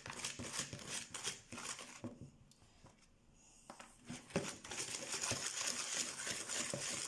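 Wire balloon whisk creaming butter and sugar in a plastic bowl: rapid scratchy strokes of the wires through the mixture and against the bowl. The whisking stops for about two seconds near the middle, then starts again.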